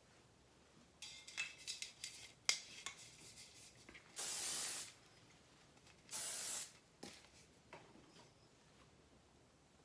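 Two short blasts from an aerosol hairspray can, each a steady hiss of well under a second, about two seconds apart. Before them come some rattling clicks from the can.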